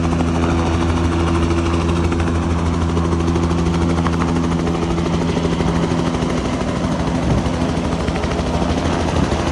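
Light helicopter hovering low overhead, its rotor and turbine giving a loud, steady pulsing hum that eases slightly about seven seconds in.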